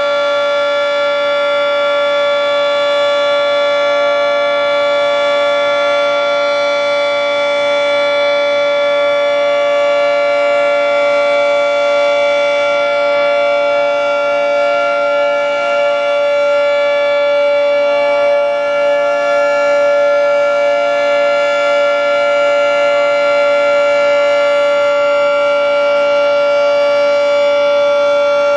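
Federal Signal 3T22 three-tone outdoor warning siren sounding a steady alert: a loud, sustained chord held at constant pitch, without rising or falling.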